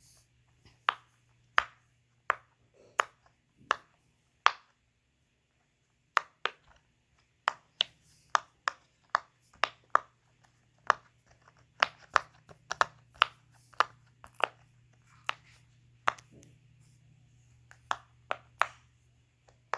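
Silicone push-pop bubble fidget toy (a poppet) on its good popping side, its bubbles pressed one after another in sharp separate pops. A few pops, a short pause, then a quicker run of them.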